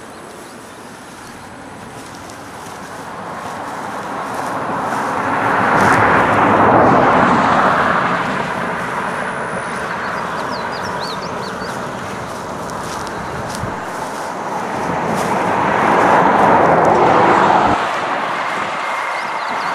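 Vehicles passing on a road, their tyre noise swelling and fading twice, with a few faint bird chirps about halfway through.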